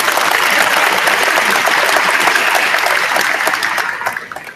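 Large audience applauding, a dense clapping that holds loud and then dies away about four seconds in.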